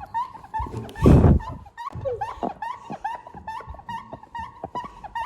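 A rapid run of short, high squeaks, about three to four a second, with one loud thump about a second in.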